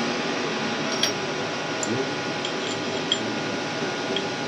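Light metallic clinks of steel and aluminum being handled at a milling machine's vise, a few separate clicks over a steady machine hum.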